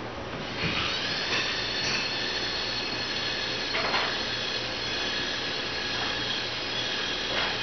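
Electric track-drive motors of an Inuktun VT300 pipe-inspection crawler whining steadily as it drives forward on its tracks, starting about half a second in, with a couple of short falling chirps.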